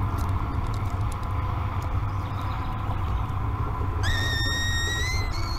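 A juvenile peregrine falcon gives one long, slightly rising wailing call about four seconds in, then a brief second note. A steady low rumble runs underneath.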